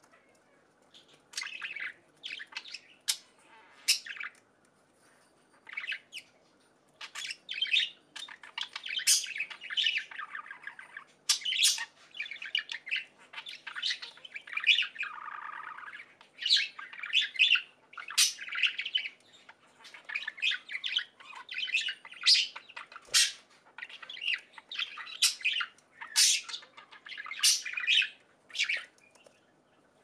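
Budgerigar chirping and chattering: a long run of short, high chirps and squawks with brief pauses.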